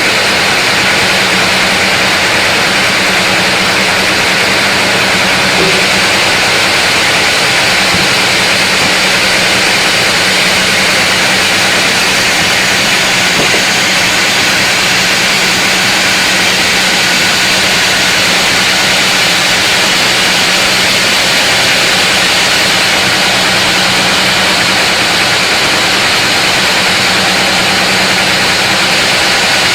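Large sawmill saw running steadily through a big mahogany log: a constant hum under a loud, even hiss.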